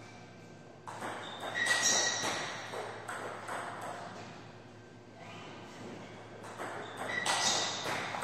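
Table tennis ball clicking off bats and the table in two bursts of play, about a second in and again from about six and a half seconds, with a quieter gap between. A brief high squeak comes near the second second.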